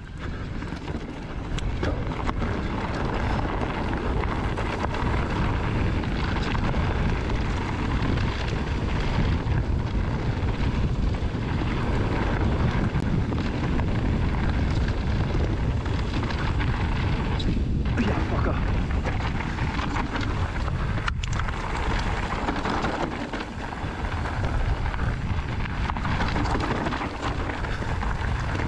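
Wind buffeting the microphone over the steady rumble and rattle of a mountain bike's knobby tyres rolling fast down a gravel and dirt trail.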